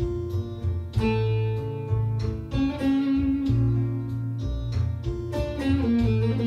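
Bağlama (Turkish long-necked saz) improvising in the Hicaz makam: a run of plucked notes and held, ringing tones, over a low bass that holds each note and steps between them.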